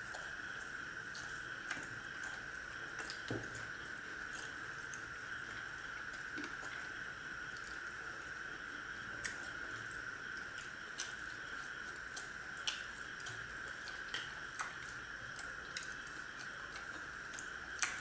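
Two people eating by hand: chewing, with scattered small clicks and taps from fingers, food and plates, over a steady high hiss.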